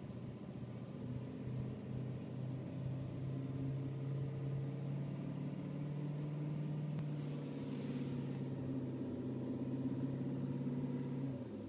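BMW E39 M5's S62 V8 idling with a steady low droning vibration, the sound the owner is recording as an idle vibration; the drone falls away near the end.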